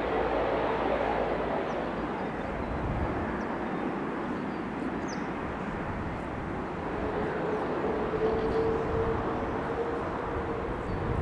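Jet aircraft engine noise, a steady rush with a faint humming tone that comes in again about seven seconds in.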